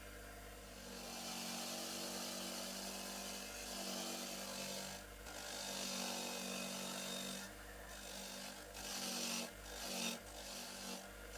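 Small electric power tool running with a steady motor hum, its grinding, rubbing noise swelling and easing as it is worked against the rusted metal of the spray gun. It breaks off briefly about five seconds in and several times near the end.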